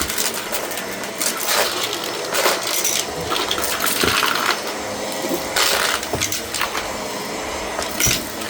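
Shark vacuum cleaner running with a steady hiss, crackling and rattling as it sucks up scattered debris, with many sharp clicks throughout.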